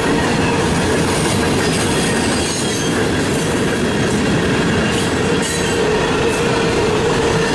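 Cars of a mixed freight train rolling past at speed: a steady rumble and clatter of steel wheels on rail, with a steady ringing tone running under it.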